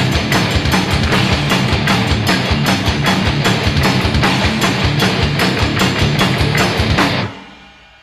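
Background rock music with electric guitar and drums at a fast, steady beat. It stops abruptly near the end, leaving a fading ring.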